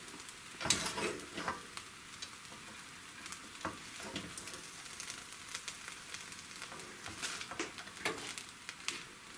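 Spoon scraping and stirring fried rice in a hot pan, irregular scrapes and clicks over a faint steady sizzle from the pan just taken off the flame.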